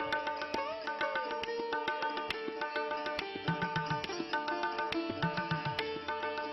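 Indian classical-style instrumental background music: a plucked string instrument with sliding notes over a steady drone, and low tabla strokes that bend in pitch.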